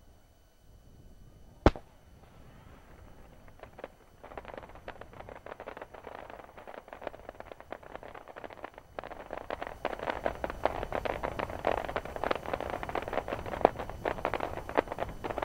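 Aerial fireworks: one sharp shell bang a couple of seconds in, then dense rapid crackling and popping of many fireworks from about four seconds on, growing thicker and louder after about nine seconds.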